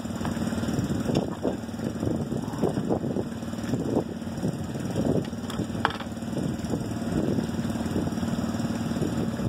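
Wind buffeting the phone's microphone in uneven gusts, over a steady engine-like hum from a running motor.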